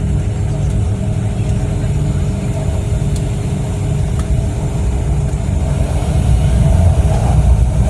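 MTR Kwun Tong Line Q-Train running, heard from inside the carriage as it leaves the station for the tunnel: a steady low rumble with a faint hum, growing louder near the end.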